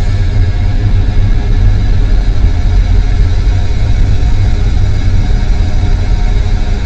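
Experimental ambient noise music: a loud, steady, dense drone, heaviest in the deep bass, with many held tones layered above it. It does not change or break.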